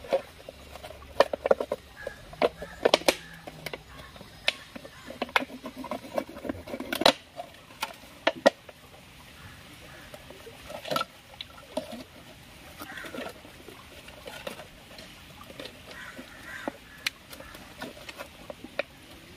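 Thin plastic drink bottle being cut with a knife and then handled: sharp, irregular crackles and clicks of the plastic, thickest in the first half, then sparser crinkling.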